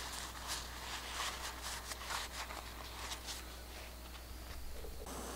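Cloth rubbing over a small steel broadhead blade, wiping it clean: a quick run of short rubbing strokes that trails off after about three seconds.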